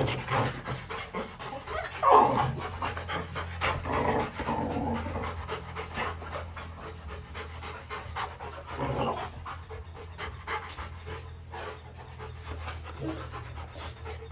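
Rottweilers panting in quick, rhythmic breaths, louder near the start and about two seconds in.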